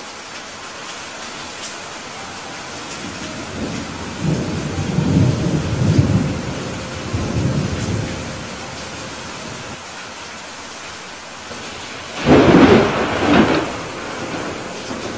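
Thunderstorm: steady rain hiss with thunder rumbling from about four seconds in, then a louder, sharper thunderclap about twelve seconds in that comes in two close peaks.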